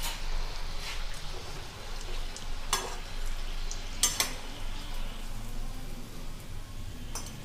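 Gujiyas frying in hot oil in a kadhai with a steady sizzle. A wire-mesh strainer and steel spatula clink and scrape against the pan about five times as the gujiyas are scooped out of the oil.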